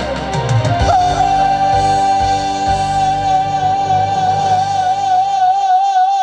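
Trot singer holding one long final note over a live band, the vibrato widening as the note goes on. The band's low end drops out shortly before the end while the note is still held.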